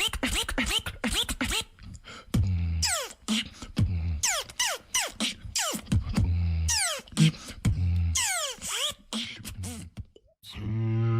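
Beatboxing. It opens with a fast run of mouth clicks, then deep bass kicks alternate with quick whistling sweeps that fall in pitch. After a brief gap near the end, a low buzzing vocal bass begins.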